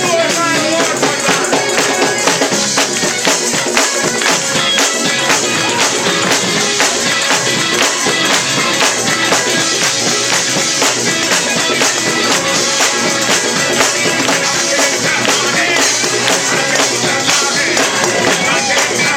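Live up-tempo gospel music from a church band, with a fast, steady percussive beat and voices singing along.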